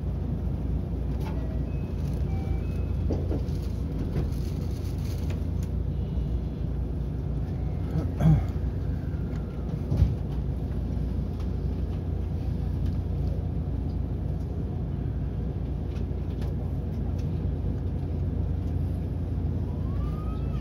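Inside an electric commuter train standing at a platform: a steady low hum from the carriage, with two thumps about eight and ten seconds in. Near the end the train starts off and the motors begin a rising whine.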